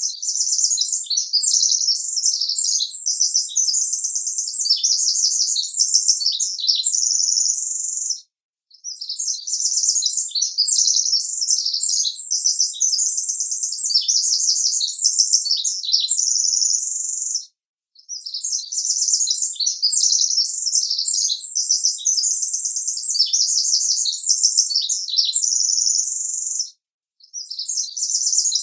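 Bird song: rapid, high-pitched chirps and trills. The same stretch of about eight seconds repeats, with a short break between each.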